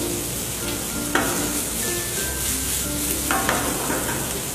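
Chopped onion and soya paneer sizzling in hot oil in a pan while being stirred, a steady frying hiss with a sharp knock about a second in.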